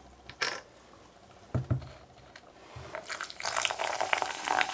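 Fizzy orange soda pouring from a plastic bottle into a plastic cup, splashing and fizzing, starting about three seconds in. Before the pour, a light click and a soft knock on the table.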